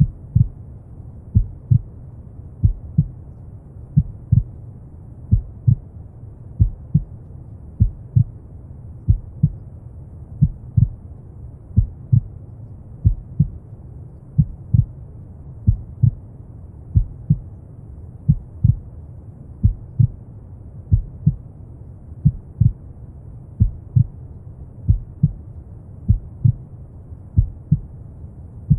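Slow heartbeat, a double thump (lub-dub) about every 1.3 seconds, over a steady low rumble of brown noise.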